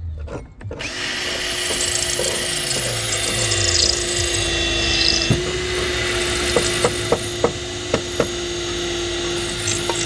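Power drill running steadily, boring a rivet hole through roofing slate with a blunt metal bit, with a run of sharp clicks over the second half.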